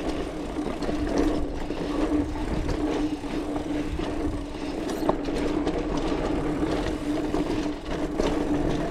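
Specialized Rockhopper mountain bike riding along a dirt trail: tyres rolling, wind on the microphone and a steady buzz, with scattered clicks and rattles from the bike.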